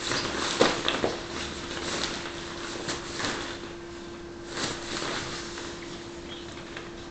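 Hollow plastic ball-pit balls knocking and clattering together, with rustling of the play tunnel's nylon fabric as a toddler moves among them; the sharpest knocks come about a second in. A faint steady hum runs underneath.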